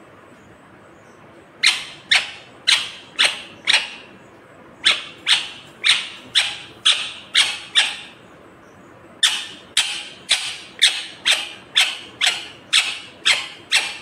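Rose-ringed parakeet calling in sharp, loud screeches, about two a second, in three runs with short pauses between.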